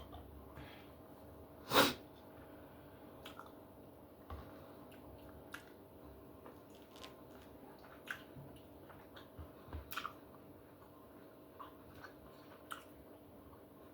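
Close-up chewing of steak: soft, wet mouth and chewing sounds with scattered small clicks, and one sharp click near the two-second mark.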